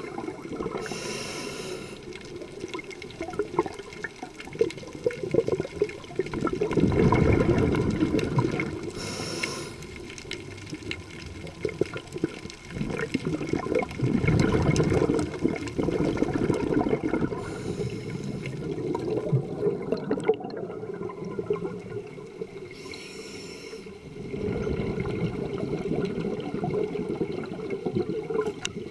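Scuba diver breathing through a regulator underwater: a brief hiss on each inhale every several seconds, and a longer, louder rush of exhaled bubbles between them.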